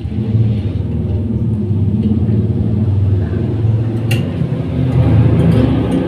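Loud, steady low mechanical rumble, like an engine running close by, growing slightly louder, with a sharp click about four seconds in.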